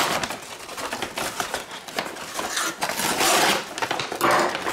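Brown kraft-paper wrapping being slit and torn open by hand, a dense crinkling rustle of paper with louder swells about three and four seconds in.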